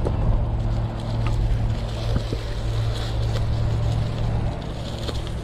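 Mountain bike riding over a sandy dirt trail, heard close up on the rider's camera: a steady low rumble of tyres and wind on the microphone, with scattered sharp clicks and rattles from the bike over bumps.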